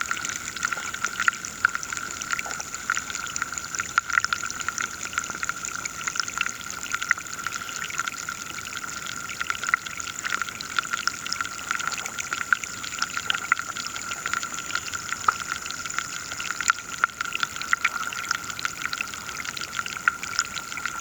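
River water heard from below the surface: a dense, continuous crackle of tiny clicks and ticks over a steady high-pitched hum.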